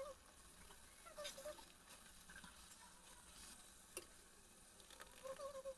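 Faint sizzling and crackling of a spice paste frying in oil in a steel kadai, with a single sharp clink of utensils against the pan about four seconds in.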